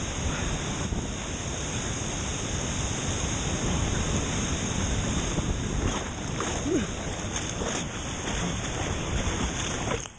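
Steady rushing of a large waterfall, Matsumi Falls, a continuous noisy wash of falling water that cuts off suddenly at the end.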